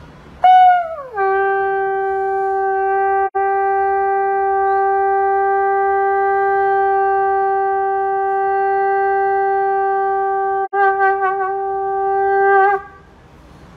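Conch shell (shankh) blown in one long blast: it starts on a higher note, drops within a second to a steady low note held for about ten seconds with two brief breaks, then wavers near the end and stops.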